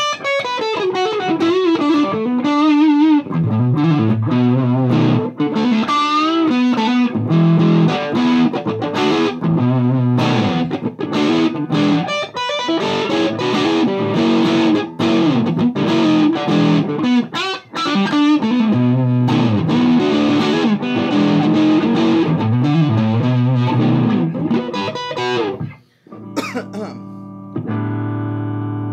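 Heavily distorted electric guitar riffing: a Gibson Les Paul through a Mesa Boogie Dual Rectifier's high-gain channel 3, set to 50 watts, into a Marshall 1960A 4x12 cabinet. Fast chugging riffs and single-note runs for most of the time; after a short break near the end, one chord is struck and left ringing.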